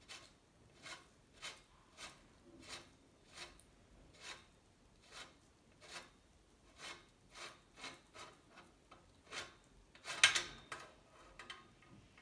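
Repeated hand rubbing or scrubbing strokes, about two a second and a little quicker after the middle, with one louder scrape about ten seconds in.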